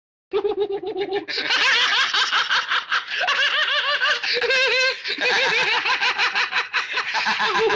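A man laughing at length from an old film soundtrack: a long run of fast, pulsing laughs that starts abruptly just after the beginning, with a brief high, wavering giggle about halfway through.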